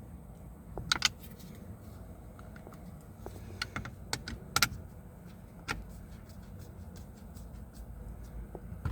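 Sharp plastic clicks and light taps from steering-column parts being handled and fitted back together, with a loud click about a second in and a cluster of clicks around the middle.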